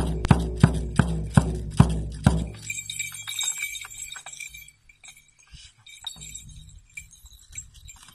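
Shamanic frame drum beaten in a steady pulse of deep strikes, about two and a half a second, that stops about two and a half seconds in. A bright metallic jingling then rings out and fades into scattered faint clinks.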